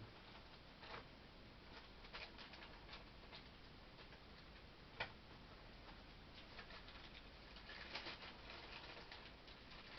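Faint scattered clicks and light rattling of dice being handled and sorted through, with one sharper click about five seconds in and a quick flurry of clicks near the eight-second mark.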